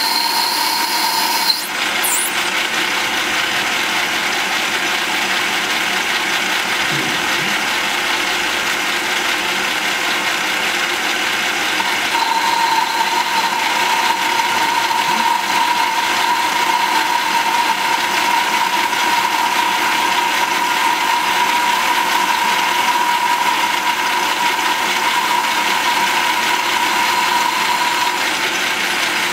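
Kunaver 700 metal lathe, belt-driven by a small electric motor, running steadily while it turns a metal workpiece. A brief break comes about a second and a half in, and a steady high whine sets in about twelve seconds in and stops near the end.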